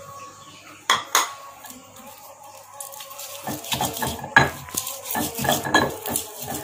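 Stone pestle grinding red chilies and spice paste in a stone mortar (Indonesian ulekan and cobek): two sharp knocks about a second in, then from about halfway a fast run of stone-on-stone grinding knocks and scrapes.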